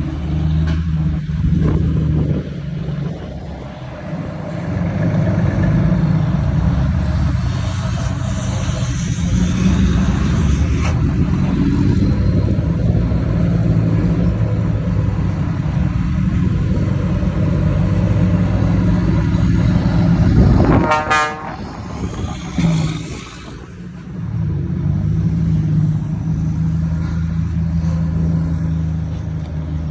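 Volvo FH truck engines rumbling through aftermarket exhausts as the convoy runs, with a horn blast about two-thirds of the way through.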